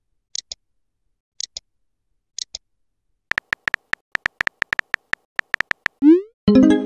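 Chat-app sound effects: faint paired ticks about once a second, then a quick run of keyboard-tap clicks as a message is typed. Near the end comes a rising whoosh as the message sends, followed by the start of a bright chime.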